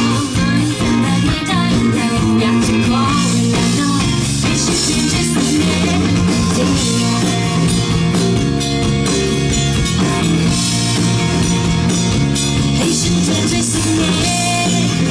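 Live rock band playing a song through the stage PA during a soundcheck: guitar and drum kit over a steady bass line.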